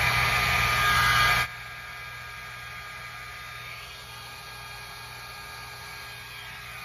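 InfinitiPro by Conair hot air brush blowing loudly on its full setting, then cut down abruptly about a second and a half in, leaving a fainter steady hum.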